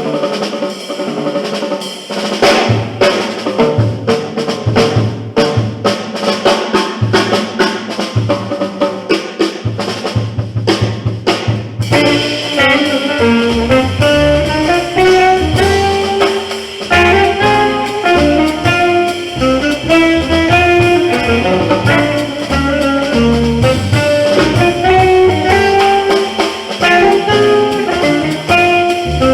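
Live jazz quartet playing: busy drum kit with a walking bass for the first twelve seconds or so, then a horn comes in with the melody over bass and drums.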